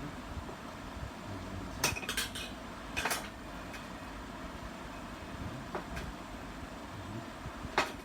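Small hard objects clinking and clicking, as tools and parts are handled on a workbench: a quick cluster about two seconds in, another about three seconds in, and a single click near the end, over a steady low background hum.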